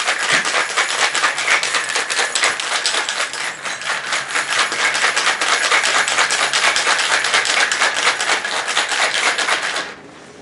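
Ice cubes rattling inside a stainless-steel cocktail shaker, shaken hard in a rapid, even rhythm. The rattle stops abruptly near the end.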